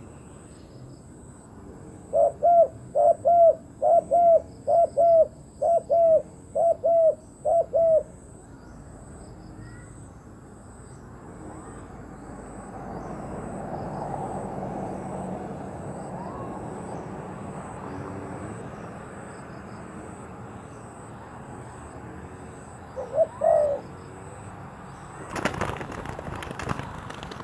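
Spotted dove cooing: a run of about nine short, evenly spaced coos, then one brief coo later on. Near the end comes a burst of sharp clattering.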